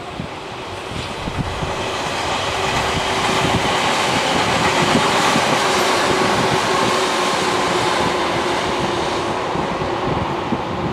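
JR Freight EF210 electric locomotive hauling a container freight train on approach. The rumble of wheels on rail carries a steady whine, and it swells over the first few seconds, then eases slightly near the end.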